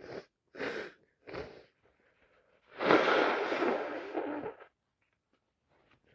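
A person's three short, sharp breaths in, then one loud, long sneeze about three seconds in, part of a day-long run of sneezing that she puts down to either a cold or hay fever.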